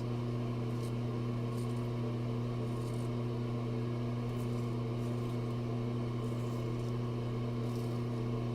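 Steady low electrical hum, with a few faint, brief scraping sounds of a straight razor cutting through lathered stubble.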